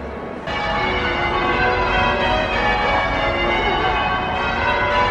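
Church bells ringing: a peal of several bells sounding over one another, starting abruptly about half a second in.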